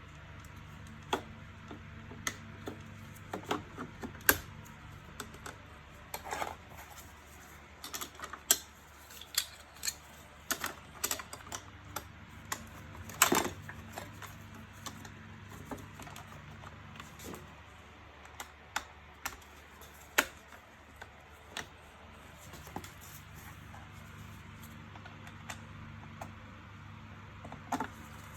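Irregular clicks, taps and knocks of plastic and small metal parts being handled while a robot vacuum cleaner is opened up for its battery swap. They are densest and sharpest in the first half, over a faint steady low hum.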